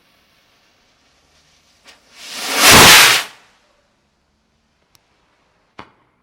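Small firework rocket launching: a faint fizz of the burning fuse, then a loud whoosh about two seconds in that swells and fades over about a second as the rocket climbs, followed by a single sharp crack near the end.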